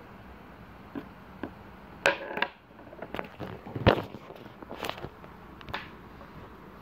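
Handling noise from the recording camera being picked up and moved: a string of irregular knocks, rubs and rustles, the loudest a sharp knock about four seconds in.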